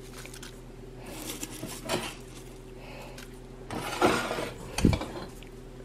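Light clinks and knocks of kitchenware as freeze-dried cabbage is dropped by hand into a stainless steel pot, over a faint steady hum. The loudest handling comes about four seconds in and ends in a soft low thud.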